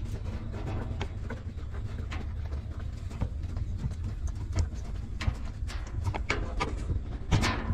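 Newborn puppies suckling at their mother, with many quick wet clicks and smacks over a steady low rumble. There is a louder burst near the end.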